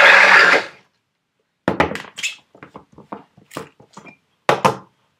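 Small personal cup blender running, then switching off in the first second. After a short silence come sharp plastic clicks and knocks as the cup is lifted off the motor base and the blade lid is twisted off.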